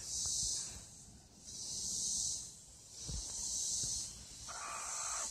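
Cicadas droning in the trees in rising and falling waves, each swell about a second long and coming every one and a half to two seconds. There is a short noisy sound near the end.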